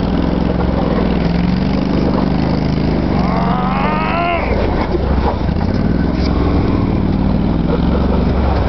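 ARGO Avenger 8x8 amphibious ATV's engine running steadily under load as it drives over rough ground. About three seconds in, a drawn-out pitched cry rises and then falls over it for a second or so.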